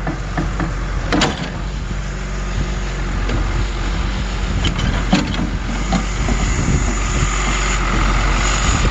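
Heavy engine of a truck-mounted well-drilling rig running steadily while drilling a well, with a few knocks early on and a higher whine coming in about six seconds in.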